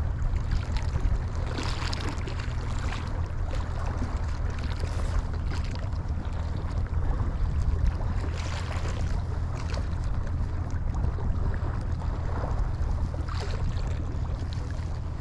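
Wind buffeting the microphone over the wash of the sea, with a steady low drone underneath and a few faint scattered clicks.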